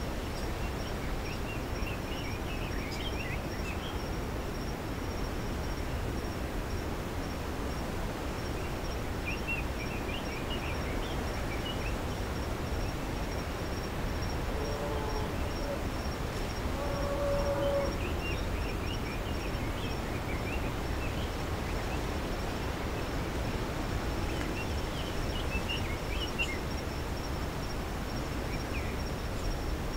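Rural pasture ambience: a steady high insect trill, bursts of bird chirps that come and go, and a steady low background noise, with a brief lower-pitched call about halfway through.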